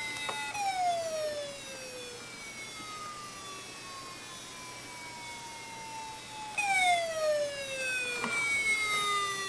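Hard disk drive giving off a whining tone that slides steadily down in pitch over about six seconds, then jumps back up high about two-thirds of the way through and slides down again.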